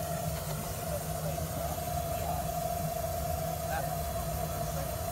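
A steady mechanical hum, even in level, with a constant mid-pitched tone over a low drone.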